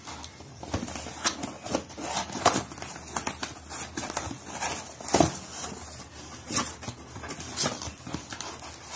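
Cardboard shipping box being opened by hand: tape pulled off and the flaps forced open. It makes a run of irregular rustles, rips and knocks, the loudest about two and a half and five seconds in.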